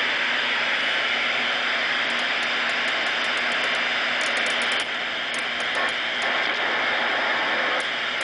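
Robyn 240D vacuum-tube CB radio receiver putting out a steady static hiss on an open channel with no one transmitting, with a faint hum and scattered faint crackling ticks.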